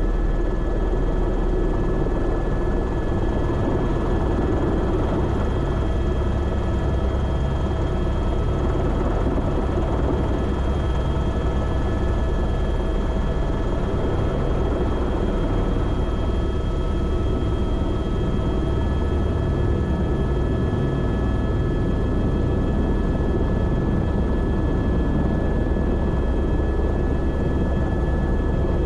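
Airbus H125 (Esquilo B3e) helicopter in flight: the steady whine of its Arriel 2D turboshaft engine over the low, dense drone of the rotors, holding even throughout.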